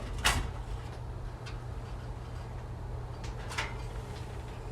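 A few light clicks and knocks of sheet metal, the loudest just after the start, as the casing of a Kero-Sun Omni 105 kerosene heater is lifted off its base.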